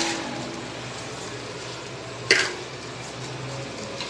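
Masala and chicken sizzling gently in an aluminium pressure cooker, with one sharp clink of the metal spoon against the pot a little past two seconds in.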